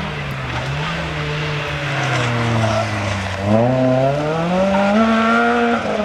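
Renault Clio RS rally car's engine coming off the throttle, its pitch falling into a corner, then revving hard as it accelerates out about three and a half seconds in, the pitch climbing and staying high.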